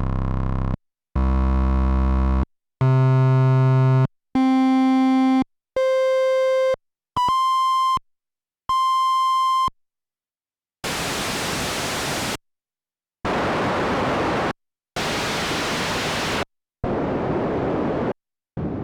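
Korg Monologue analog monosynth one-shot samples. About seven separate held notes, each a second or so long, step up in pitch from a deep buzzy bass and grow purer until they are thin, high, pure beeps. Then come four bursts of hiss of about a second and a half each, the last one duller.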